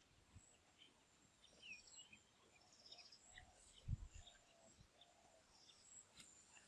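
Faint outdoor ambience with small birds chirping in short, scattered calls and a thin steady high tone. There is one soft low thump about four seconds in.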